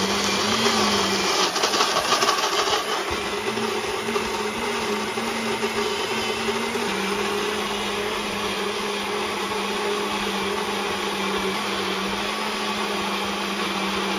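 Nutribullet blender motor running continuously, blitzing a thick cannellini bean and garlic purée that has just been loosened with a little water. The sound is rougher for the first three seconds or so, then settles into a steady hum.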